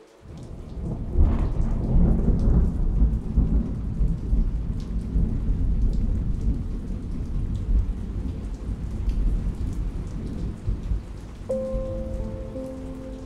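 Steady heavy rain with a roll of thunder about a second in. Soft pitched music notes come back in near the end.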